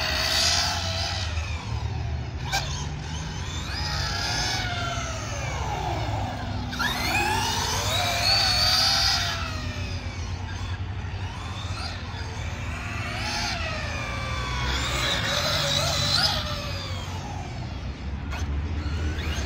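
Arrma Limitless 6S RC car's brushless electric motor whining as it is driven, its pitch rising and falling over and over as the car accelerates and slows.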